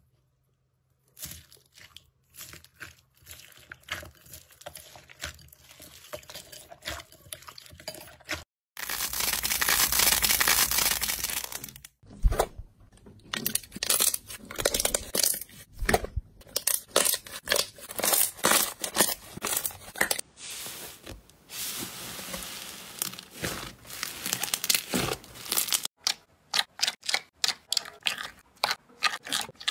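Slime being squeezed, stretched and poked by hand, giving a run of crackling, popping clicks. A louder, denser stretch of crackling comes from about nine to twelve seconds in.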